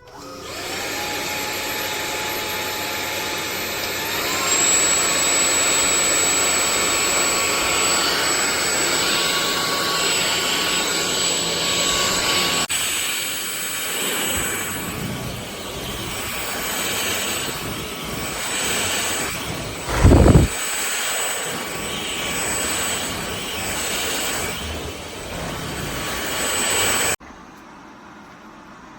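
Cordless stick vacuum cleaner running: its motor whine rises as it starts, steps up in pitch about four seconds in, and cuts off abruptly near the end. A brief loud thump comes about twenty seconds in.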